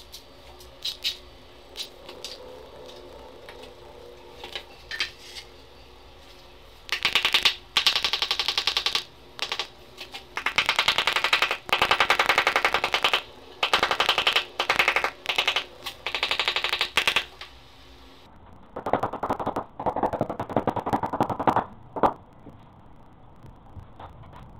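Power hammer drill hammering in rapid bursts of one to three seconds, with short pauses between them. The last few bursts, near the end, sound duller and lower. A few single clicks come before the drilling starts.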